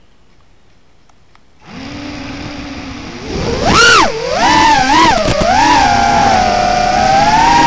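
FPV quadcopter's brushless motors, heard from the craft itself. Once armed, about two seconds in, they spin at a steady low idle; just after three seconds they throttle up into a sharp rising whine as it takes off. After that the whine keeps rising and falling in pitch with the throttle.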